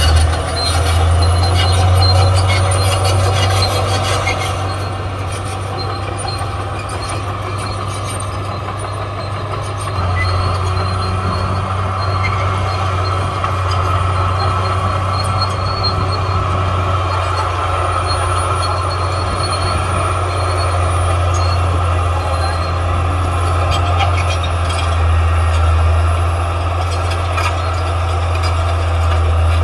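Caterpillar D6R XL bulldozer's diesel engine running under load with a steady low drone. It eases off for a few seconds, then picks back up about ten seconds in.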